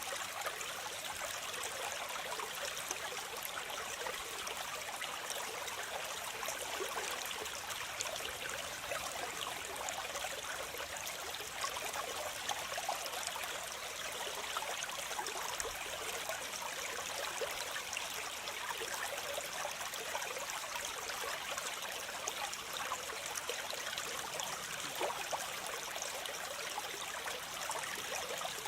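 Waterfall: a steady rush of water cascading and splashing, with many small splashes in it.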